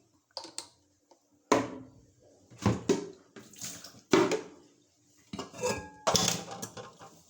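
Pots, pans and utensils clattering as they are handled and set down: about a dozen sharp knocks in small clusters, one ringing on briefly about five and a half seconds in.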